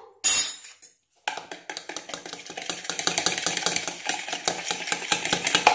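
Metal fork beating a raw egg with salt in a plastic bowl: rapid, steady tapping and scraping of the fork against the bowl, starting about a second in. A brief clatter comes just before it.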